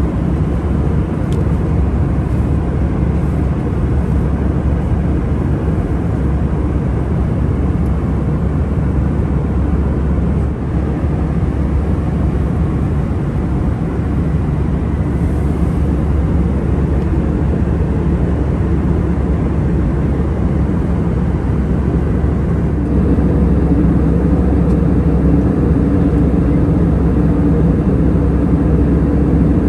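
Steady drone of engine and airflow noise inside the cabin of an Airbus A319 with CFM56 engines. About two-thirds of the way through it steps up and gets louder, with a stronger low hum.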